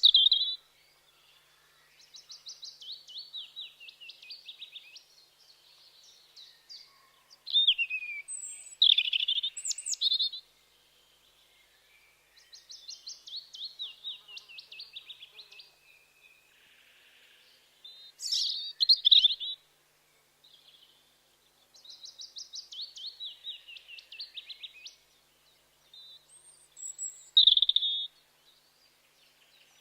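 European robin singing: phrases of rapid high notes, some running down in pitch over two to three seconds and others short and loud, with a second or two of pause between them.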